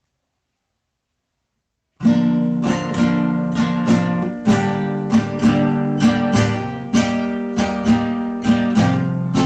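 Silence, then about two seconds in an acoustic guitar starts strumming chords in a steady rhythm, the instrumental opening of a worship song.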